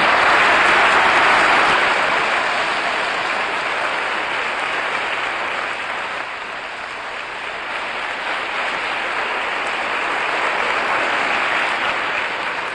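A large audience applauding steadily, loudest in the first couple of seconds and easing off slightly after that.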